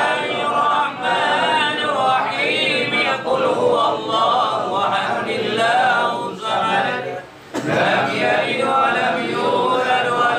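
A group of men chanting Islamic prayers together, unaccompanied, for the tahlilan (samadiyah) prayer for the dead. The chant breaks off briefly about seven seconds in, then carries on.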